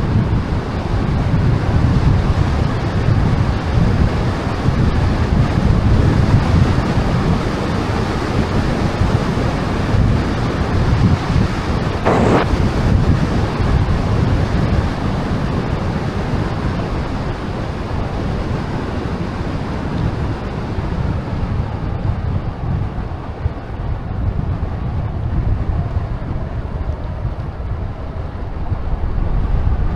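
Wind buffeting the microphone of a rider cycling at speed, a steady low rumble. A short sharp noise cuts through it about twelve seconds in.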